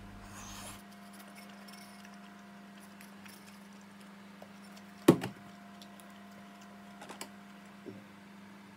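Chopsticks and a bowl clicking and knocking while eating: one sharp click about five seconds in, then a few softer clicks near the end, over a steady low hum.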